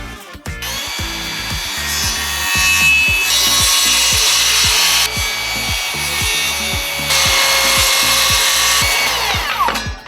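Electric power saw cutting wood, running with a steady whine from about half a second in, then winding down with a falling pitch just before the end.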